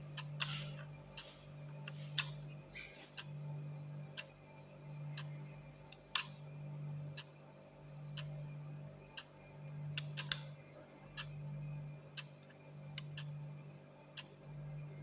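Sharp plastic clicks, irregularly spaced and about one to two a second, as the time-set pins of a mechanical 24-hour timer switch are pushed in one by one with a pointed tool. Under the clicks is a faint low hum that swells and fades about every one and a half seconds.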